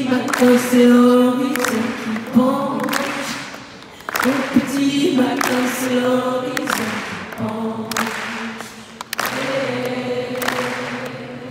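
A large arena crowd singing together without accompaniment, many voices on one melody, repeating a sung phrase about every four seconds.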